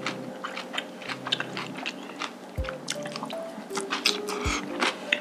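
Close-up, wet chewing and mouth clicks as rice in black bean sauce (jjajang rice) is eaten from a spoon, over cute, light background music.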